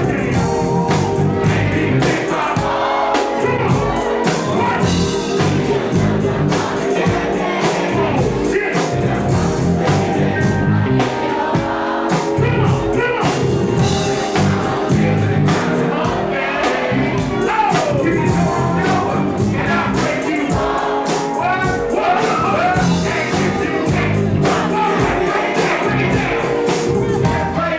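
Loud music with singing and a steady pulsing beat, from a live concert performance.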